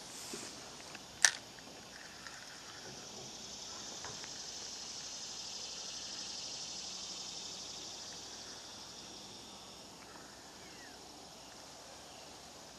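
A sharp click about a second in, then a steady high insect drone that swells over several seconds and fades again.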